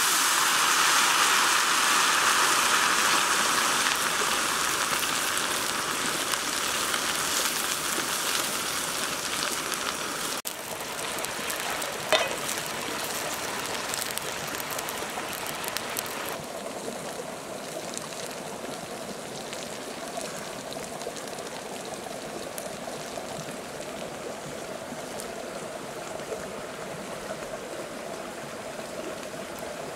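Crickets dropped into a hot wok sizzling loudly in a hiss that fades gradually over about ten seconds as they are stirred with a spatula. A single sharp click comes about twelve seconds in. After about sixteen seconds only a softer, steady rushing remains.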